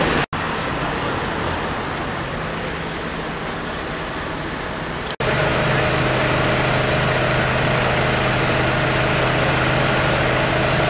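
Engine of a fire-service vehicle running steadily, a constant hum over a noisy bed. The sound breaks off for an instant about a third of a second in and again about five seconds in. After the second break the hum is louder and steadier.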